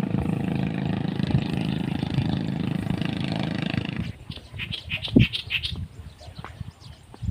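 Small engine running with a rapid, even pulse, cutting off about four seconds in, followed by a few scattered clicks and knocks.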